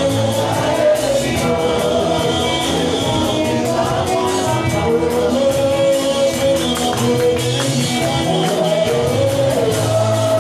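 Live gospel worship music: several singers on microphones over keyboard, electric guitar and drums, played through the hall's loudspeakers, with a steady beat.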